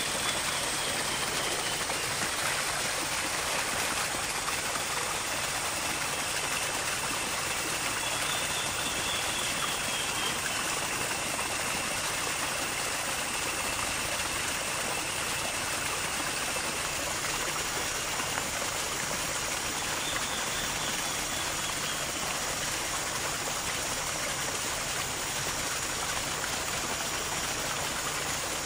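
Steady rush of running water, like a stream, with faint thin high tones above it.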